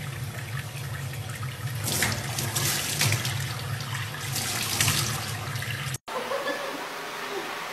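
Tap water running into a stainless steel sink, with splashes as a baby chimpanzee puts its hands in the stream. It cuts off abruptly about six seconds in, leaving quieter background sound.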